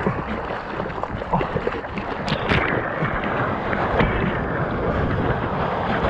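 Water splashing and rushing close to the microphone as a surfboard is paddled into a small wave and caught, ending in breaking whitewater around the board. Two short, sharp splashes come a little over two seconds in.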